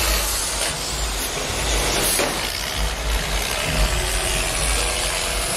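Engines of several demolition-derby school buses running as the buses drive close by: a steady, loud rumble with hiss.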